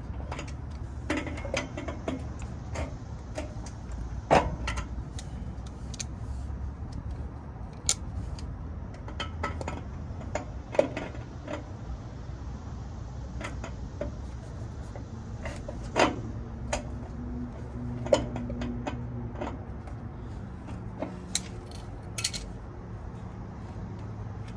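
Irregular metallic clicks and clinks of a tool working a metal push-to-connect air-brake fitting as it is threaded in and tightened, over a steady low hum.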